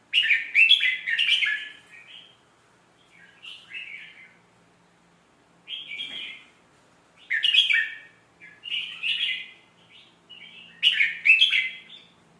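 Red-whiskered bulbul singing: short, quick warbled phrases in groups every second or two, the loudest groups at the start, about seven seconds in, and near the end.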